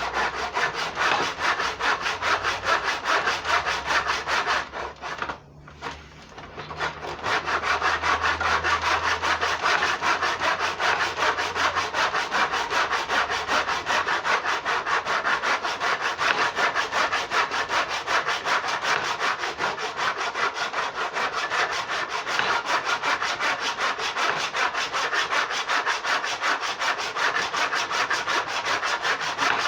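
Hand saw cutting with steady back-and-forth strokes, with a short break about five seconds in.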